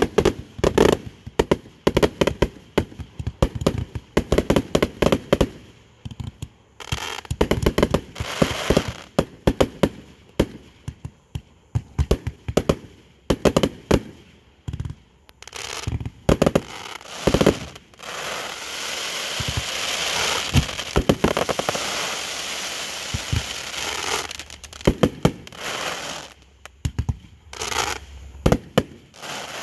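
Rapid, irregular loud pops and crackling, like a string of firecrackers going off. A little past halfway the pops run together into a steady hissing crackle for several seconds, then return to scattered bangs.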